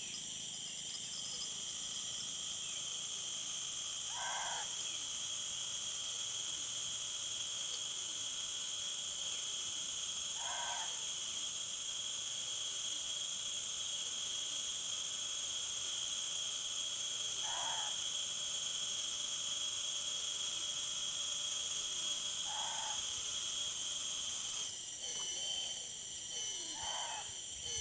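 An unseen night animal gives a short call five times, about every five to six seconds, over a steady high drone of night insects. The fishers take it for an eerie sound, which a companion puts down to a bangkuy.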